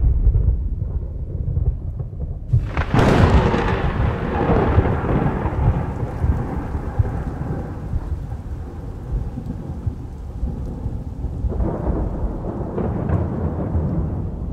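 Thunder in a thunderstorm with rain falling: a low rumble throughout, then a sudden loud crack about three seconds in that rolls away over several seconds, and another, weaker peal near the end.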